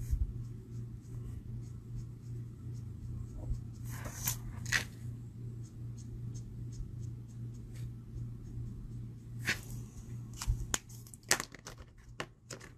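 Alcohol marker nib scratching across cardstock in short colouring strokes, over a steady low hum. A few sharp clicks come near the end as the marker is set down.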